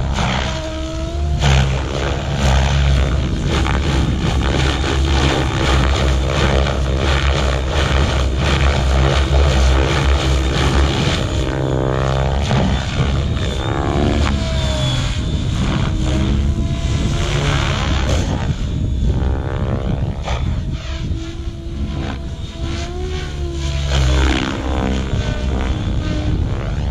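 Radio-controlled model aerobatic airplane flying close by, its motor and propeller rising and falling in pitch again and again as it passes and climbs, over a steady low drone through much of it.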